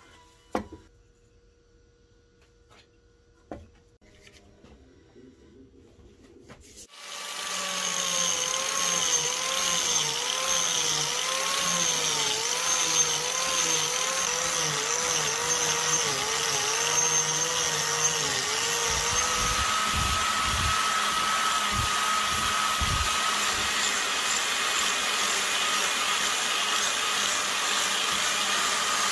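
Two short knocks in near quiet, then about seven seconds in a handheld angle grinder starts and runs steadily, its disc grinding a round recess into a wooden board. The motor's pitch wavers for the first several seconds, then holds.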